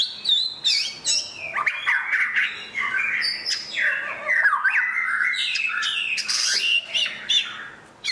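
White-rumped shama singing a fast, varied song of whistled notes, rising and falling glides and sharp clicks, going on almost without a pause.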